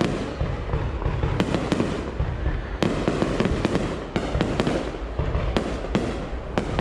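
Aerial fireworks going off in quick succession: many sharp bangs over a continuous low rumble.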